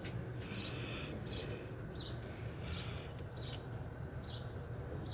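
A bird chirping over and over, short falling chirps repeating about once or twice a second, over a steady low hum.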